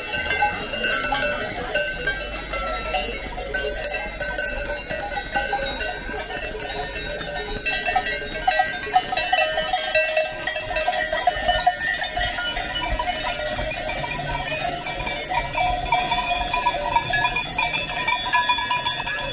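Several large cowbells on the collars of cows walking past, clanking and ringing unevenly and overlapping without a break.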